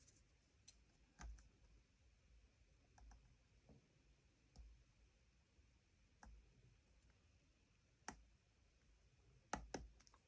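Faint, scattered clicks of a short hook pick and top-of-keyway tension tool working the pins of a lock, with a few sharper clicks near the end.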